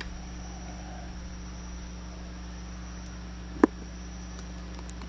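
Steady low hum with a faint, continuous high-pitched whine, and one sharp click about three and a half seconds in.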